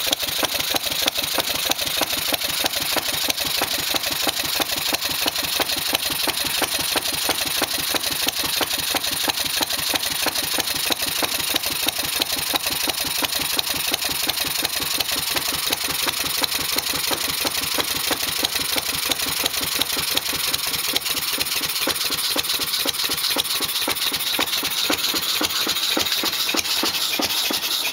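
6 hp Briggs & Stratton single-cylinder OHV engine, fitted with a big flywheel, a muffler and an atmospheric (suction-opened) intake valve, running steadily with a rapid, even firing beat.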